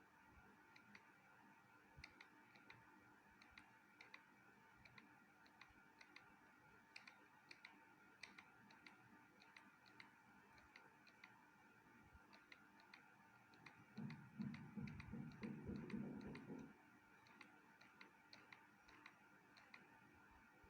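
Near silence: faint room tone with a steady hum and scattered faint ticks, and a brief low rumble about fourteen seconds in.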